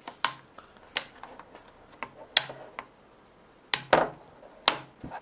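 Plastic clips of a netbook's display bezel snapping loose as the bezel is pried off by hand: about six sharp clicks and snaps, spaced irregularly, the loudest around the middle and near the end.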